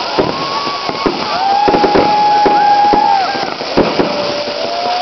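Firecrackers cracking in quick, irregular succession. Over them come several long, steady high tones, each held for one to two seconds.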